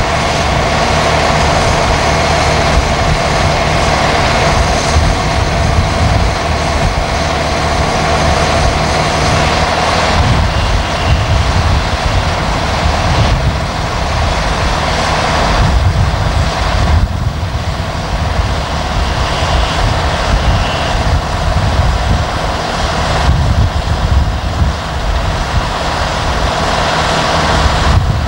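Heavy diesel engines of earthmoving machines running, including a Volvo BM A25B articulated dump truck driving past loaded with earth. A steady engine drone over a strong, uneven rumble.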